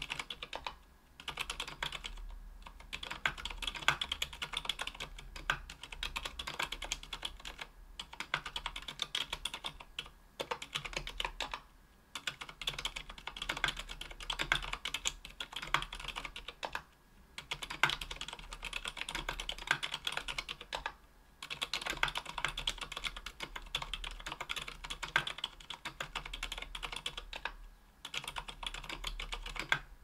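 Typing on a KBDfans Tofu 60% aluminium mechanical keyboard fitted with lubed Zilent V2 silent tactile switches (62 g) on an aluminium plate, with GMK keycaps. A fast, continuous run of keystrokes breaks off in brief pauses every few seconds.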